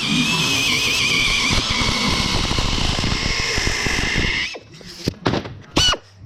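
Rotary power tool working the sheet metal of a pedal car body, a high whine over a rushing hiss, as in abrasive rust removal. It cuts off about four and a half seconds in, followed by a few short scraping strokes.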